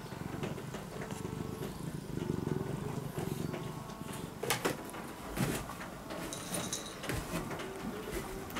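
Domestic cat purring close by, a rough low rumble through the first half; after about four seconds, soft rustles and light knocks as bedding shifts under a moving cat.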